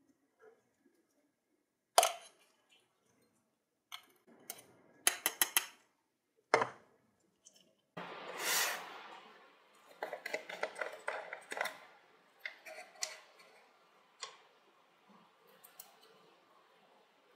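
Small handling sounds of a plastic jar and a small metal lighter part: separate sharp clicks and taps in the first half, including a quick cluster of clicks about five seconds in, then rustling with many small clicks and knocks as the jar and its lid are handled.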